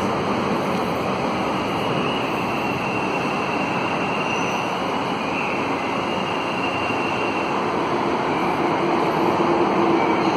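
Steady roar of a metro station concourse, with a faint high whine through the middle.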